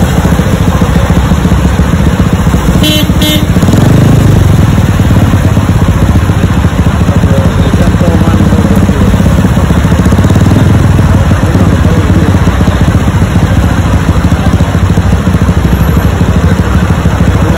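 Motorcycle engine idling steadily close by, with traffic running around it. A brief double beep sounds about three seconds in.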